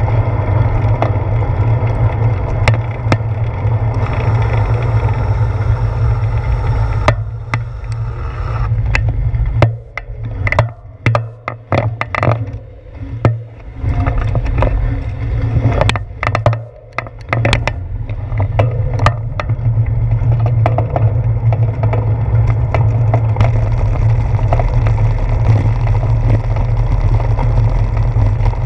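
Wind buffeting the microphone of a bicycle-mounted action camera, with road and tyre rumble while riding. About seven seconds in the rumble drops away in patches for roughly ten seconds as the bike slows at an intersection, and a scatter of sharp clicks is heard before the steady wind noise returns.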